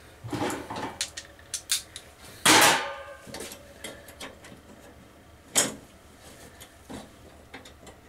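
Scattered metallic clicks, knocks and clatter of hands working on an evaporator fan motor's mounting hardware. A louder clank comes about two and a half seconds in, and a sharp knock a little past halfway.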